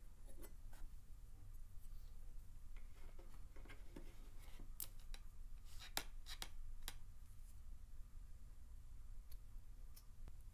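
Small sharp clicks and taps from a steel knife blank and a wooden strip being handled while glue is spread on the blank's tang. The clicks are scattered, the loudest close together about halfway through, over a faint steady hum.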